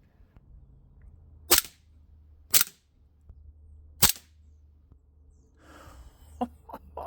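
Cybergun Desert Eagle .50AE CO2 blowback BB pistol firing three sharp shots about a second apart, each with the crack of the metal slide cycling back. A fainter click comes near the end.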